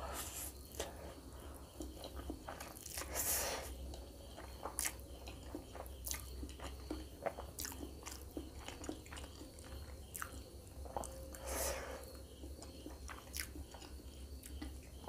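Close-miked eating of spicy instant noodles: wet chewing and mouth clicks throughout, with three longer slurps, one right at the start, one about three seconds in and one near twelve seconds. A low steady hum runs underneath.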